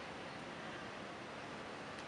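Steady, even outdoor background hiss, with no distinct sound standing out.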